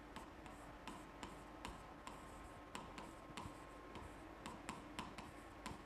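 Faint, irregular tapping and clicking of a stylus pen on a touch-screen board as letters are written, about three taps a second, over a low steady hum.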